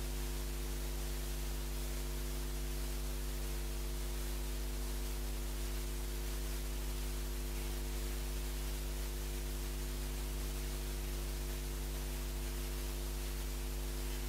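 Steady electrical mains hum with an even hiss over it, unchanging throughout: a held silence with only the background noise of the recording.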